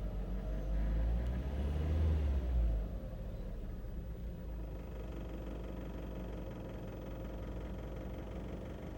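2001 Volkswagen Beetle's 1.8-litre turbocharged four-cylinder engine running, with the knock it is recorded for. It is revved briefly in the first three seconds, then drops back to a steady idle.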